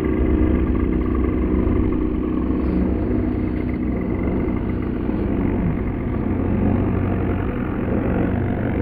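Large RC aerobatic model airplane's motor and propeller running steadily as the plane hangs nose-up in a hover over a pond, with the throttle held nearly constant.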